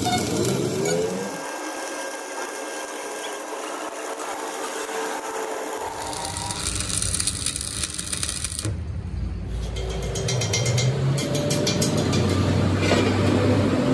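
A gas cutting torch hissing against a steel truck wheel rim, then after a cut, a stick-welding electrode crackling and sizzling as it welds the rim, with a low hum underneath.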